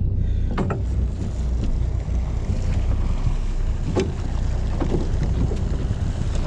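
Steady low drone of the charter boat's engine, with wind rushing over the microphone. Two short clicks, about half a second in and about four seconds in, while a rockfish is being handled.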